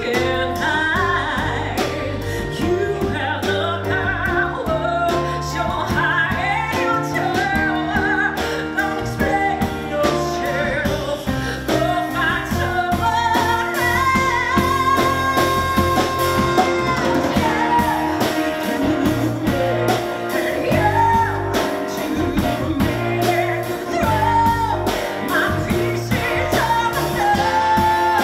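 A woman singing a musical-theatre song live in full voice with band accompaniment, holding one long note about halfway through.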